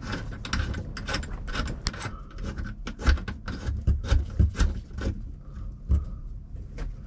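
Handling noise of cables and connectors being worked at the jacks of a Garmin AIS 800 transceiver as the VHF antenna coax is plugged in: a run of sharp clicks and rubs with a few dull knocks, loudest around three to six seconds in.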